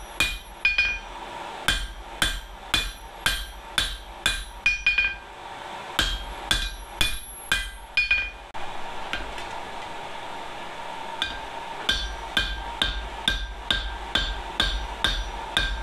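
Hand hammer striking hot steel on an anvil, about two blows a second, each with a short metallic ring: the end of an old demolition chisel being forged into a dishing hammer head. The blows pause for a few seconds past the middle, then resume.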